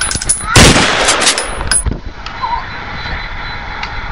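A film gunshot sound effect: one loud blast about half a second in that rings on for over a second, with a few smaller sharp cracks just before it.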